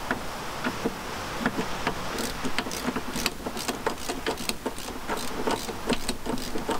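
Socket ratchet clicking in short, uneven runs as the bolts holding a bracket to a Land Rover's steel firewall are worked loose.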